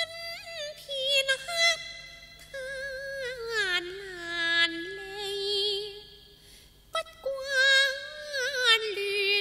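Female Cantonese opera singer singing a slow, drawn-out melismatic line with wide vibrato and gliding pitch. A single sharp click sounds about seven seconds in.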